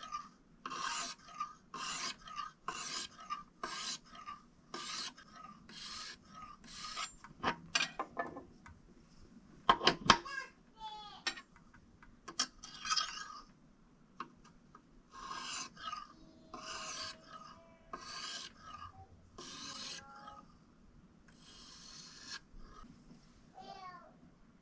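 Kitchen knife being sharpened by hand, its blade scraped in short strokes along a sharpening stone, about one stroke a second. A few sharp knocks about ten seconds in, then more strokes.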